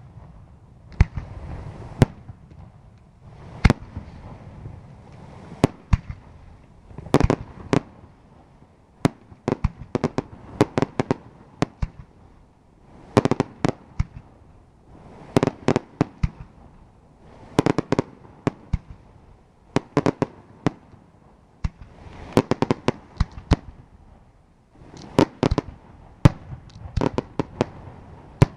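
Aerial firework shells bursting overhead in an irregular series of sharp bangs, often several in quick succession with short gaps between the clusters.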